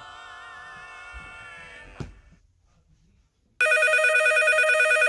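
A telephone rings with a loud electronic warbling trill lasting about two seconds, starting past the middle. Before it, a held musical note ends with a knock about two seconds in.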